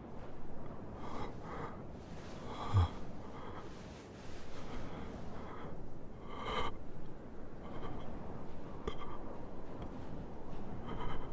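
A young man's heavy, ragged breathing and gasps in shock, separate breaths every second or two, the loudest about three seconds in.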